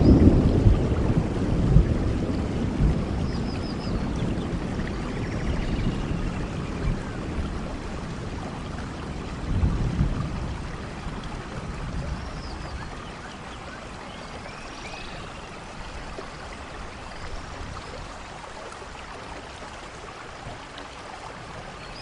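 Steady rain falling, with a low thunder rumble that is loudest at the start and dies away over the first half, swelling briefly once more about ten seconds in. Faint short high chirps sound now and then over the rain.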